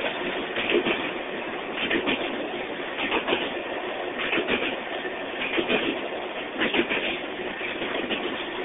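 Two freight trains' cars rolling past each other on steel rails. A steady rolling noise is broken by wheel clacks over the rail joints, which come in regular clusters about once a second.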